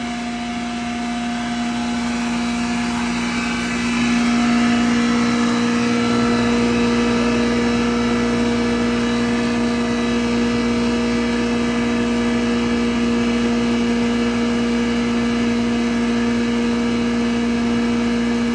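Wheat bran grinder machine running and grinding bran, a steady hum over a noisy hiss. It gets louder about four seconds in and then holds steady.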